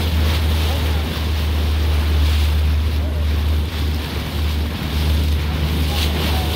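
A motorboat's engine runs with a steady low drone while the boat is under way, with water rushing past and wind noise on the microphone.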